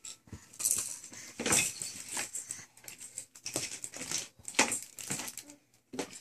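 Irregular rustling and light clattering of children's toys being handled, with the loudest knock a little over four and a half seconds in.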